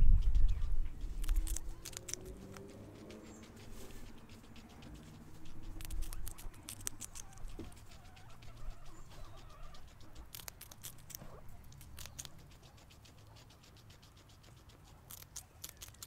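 Guinea pig biting and chewing raw yellow capsicum: crisp, quick crunches in several short bursts. A low rumble at the start is louder than the crunching.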